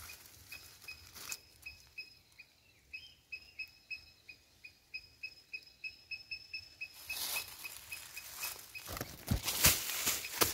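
An animal's short high chirp repeated steadily, about three a second, for the first seven seconds. After that, rustling in dry grass and sharp thumps as the fisherman moves on the bank and handles his cast net and catch; these are loudest near the end.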